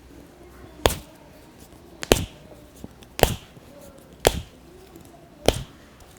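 Five sharp cracks about a second apart, the pops of a barber's cracking massage.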